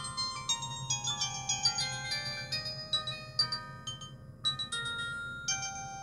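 Audiovox CDM-8940 flip phone playing a ringtone melody through its small speaker: a run of quick pitched notes, a short pause about four seconds in, then the melody starts again.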